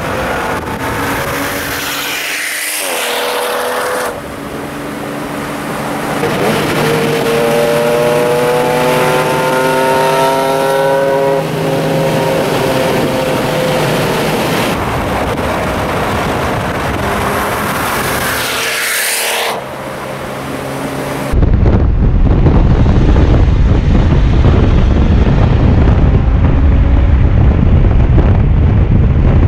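Tuned sports cars pulling hard on a highway roll race. An engine note climbs steadily through the revs under full throttle, and a car sweeps past with falling pitch about two seconds in and again near nineteen seconds. About twenty-one seconds in the sound switches abruptly to a steady rush of wind and road noise inside a car's cabin at speed.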